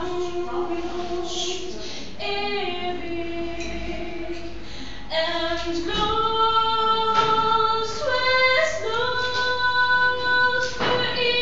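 High female voices singing a melody in long held notes, the pitch stepping from note to note.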